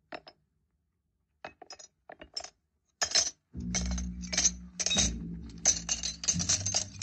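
Coins clinking as they are dropped into a hat: a few separate clinks at first, then a quick run of many from about three seconds in. A low steady hum sits beneath them from about halfway.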